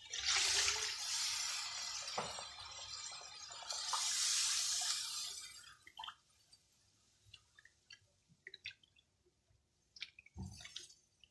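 Water poured into a hot wok of fried curry paste, hissing loudly for about six seconds as it hits the pan. Then the curry is stirred, the spatula clicking and knocking against the wok.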